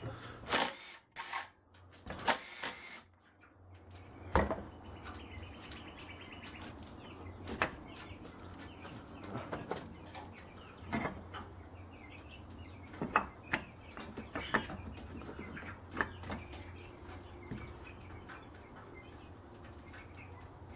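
Two short blasts of compressed air into a brake caliper in the first three seconds, an attempt to force out its seized pistons. After them come scattered bird chirps over a low steady hum.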